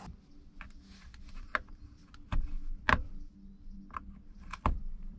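Irregular light clicks and knocks of a flathead screwdriver working at a car's plastic centre console trim to pry it up.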